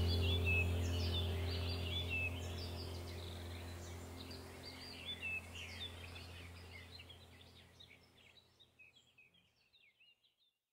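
Birds chirping over a low steady hum, both fading out gradually until silence about eight seconds in.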